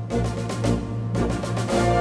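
Parade band music: drumbeats about twice a second, with sustained chords swelling in over the second half.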